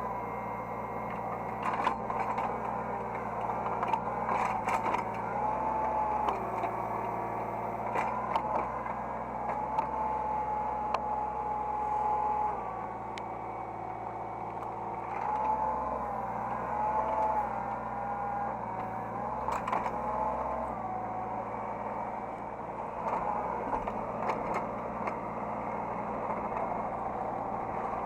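Hydraulic excavator working, heard from the operator's cab: a steady engine hum under a hydraulic whine that slides up and down in pitch and changes every few seconds as the machine is moved, with scattered short clanks.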